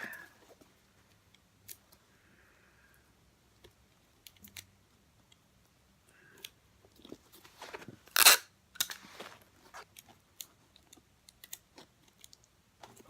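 Tape being pulled off the roll and pressed down by hand: scattered small clicks and handling noises, with one loud tearing strip about eight seconds in.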